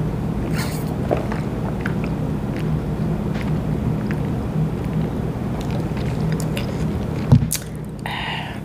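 Close-up mouth sounds of a person sipping a drink through a plastic straw and swallowing, over a steady low hum. About seven seconds in there is one sharp click as the straw leaves her lips, followed by a short breathy sound.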